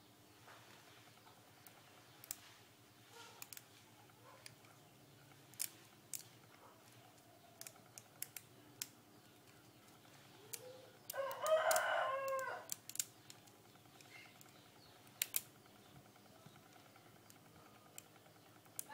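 A rooster crows once, a call of about two seconds a little past halfway through, the loudest sound here. Around it come scattered light clicks and taps of small plastic parts, from the handling of the netbook's keyboard and keys.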